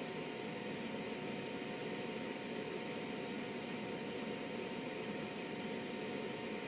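Steady hum and hiss of electronic bench equipment running, likely the HP 1980B oscilloscope's cooling fan, with a couple of faint steady tones and no change throughout.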